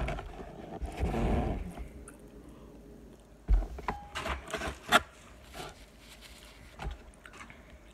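Eating sounds: a fork scraping and clicking against a takeout container, with several sharp knocks and taps, the loudest about three and a half and five seconds in.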